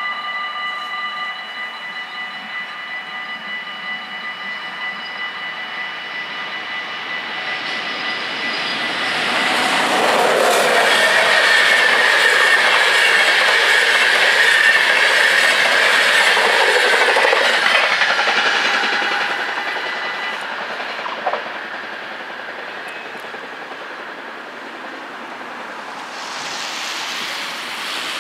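Level-crossing warning bells ringing steadily while an InterCity train of passenger coaches passes over the crossing, loudest for about eight seconds from roughly ten seconds in with a rushing rumble and wheel clatter, then fading away. The bells stop about twenty seconds in, and near the end a car drives past.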